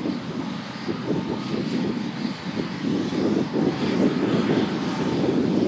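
Class 52 2-10-0 steam locomotive 52 6106 working hard under load, its fast exhaust beats mixed with the drone of the diesel locomotives on the same train, getting louder toward the end as the train comes closer.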